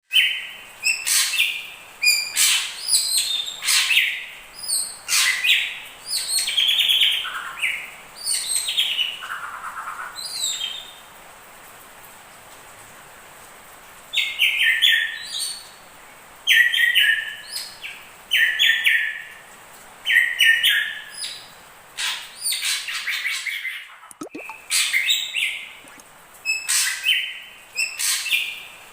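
Drongos singing, a mix of hair-crested drongo and ashy drongo song: bursts of short, repeated whistled and sharp clicky notes, with a pause of a few seconds near the middle.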